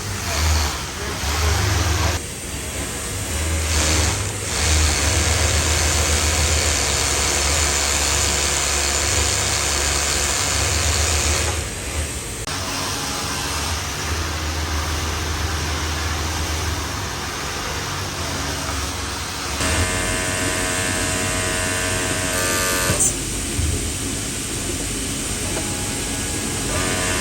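Machinery running with a steady rumble and noise; about two-thirds of the way through, a humming whine with several steady tones sets in.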